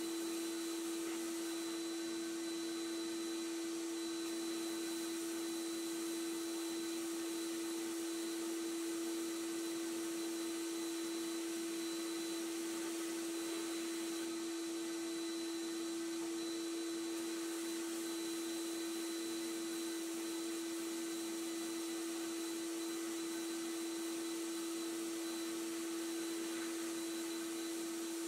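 Abrasive blast cabinet stripping paint and rust from a pressed-steel toy truck tank: a steady hiss from the blast nozzle over a constant hum.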